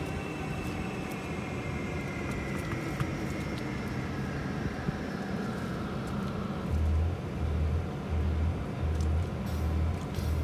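Steady background noise of passing traffic, with the faint whine of a vehicle sliding slowly down in pitch as it goes by. About seven seconds in, a low bass beat of music starts, about one and a half beats a second.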